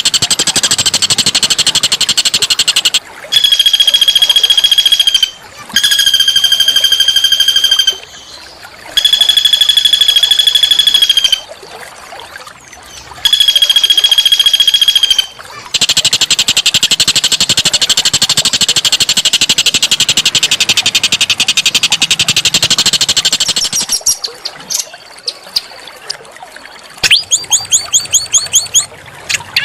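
A small songbird singing a rough-toned song: a dense chattering trill, then four long held notes of steady pitch, each about two seconds, with short gaps between them. The chatter comes back, and a run of quick repeated notes follows near the end.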